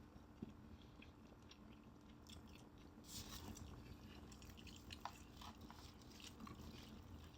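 Faint chewing and biting of crispy fried chicken, with soft crunchy crackles that come thickest about three seconds in, over a faint steady hum.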